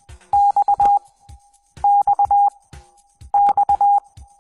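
Morse code practice tone, a steady beep a little under 1 kHz, sending the letter X (dah-dit-dit-dah) three times, each group about 1.5 s apart.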